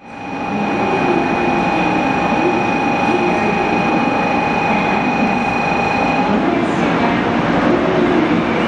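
Shinkansen platform departure signal: a steady electronic ring at one pitch that cuts off suddenly about six seconds in, over the hum and murmur of the station platform.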